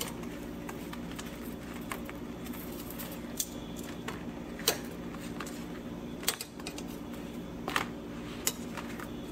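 Metal kitchen tongs and a banana leaf being handled over a gas burner to soften the leaf: scattered light clicks and crackles over a steady low hum.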